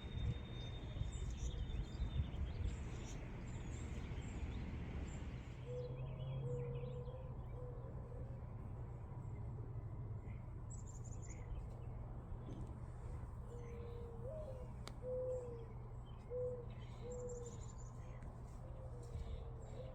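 Birds calling outdoors: high, brief chirps and a series of short, repeated lower-pitched calls, over a steady low rumble of background noise that lessens about six seconds in.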